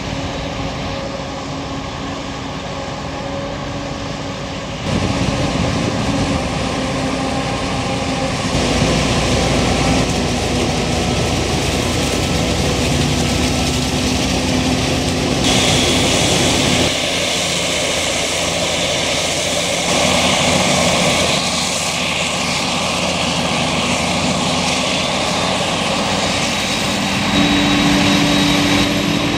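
Claas Jaguar 980 self-propelled forage harvester chopping corn and blowing silage into a trailer, with a Fendt 820 tractor running alongside: a loud, steady drone of engines and machinery. Its level and tone change abruptly several times, first about five seconds in and then around the middle and near the end.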